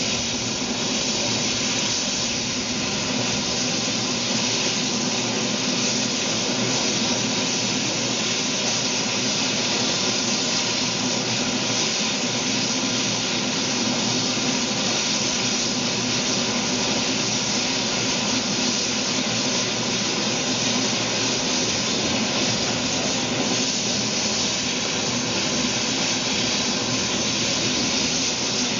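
Steam locomotive 3642, a NSWGR 36 class 4-6-0, hissing steadily as steam escapes at its front end while it stands on a turntable.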